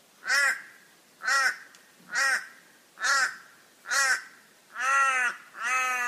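Torresian crow (Corvus orru) cawing: seven caws about a second apart, each rising and falling in pitch, with the last two longer and drawn out.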